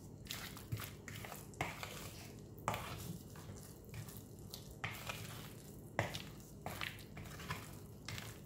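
Thick carrot cake batter being stirred and folded by hand with a spatula in a bowl. It makes irregular wet scraping and squelching strokes, roughly one or two a second.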